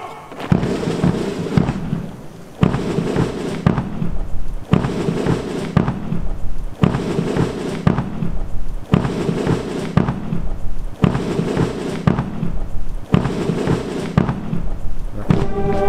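Loud background music built on heavy, booming percussive hits, in a pattern that repeats about every two seconds.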